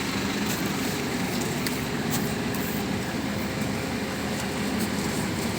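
Heavy diesel engine of concrete road-construction machinery running steadily, with a few faint clicks and knocks over it.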